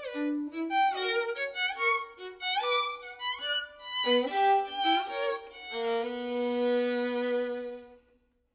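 Two violin parts playing together in quick bowed passages, on a modern violin made by Paul Llewellyn Davies in 2002. The music settles on a long held pair of notes about six seconds in, which fades out near the end.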